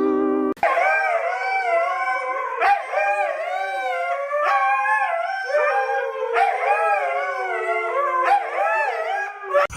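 A dog howling in a long run of wavering calls that rise and fall in pitch. It starts about half a second in and breaks off just before the end.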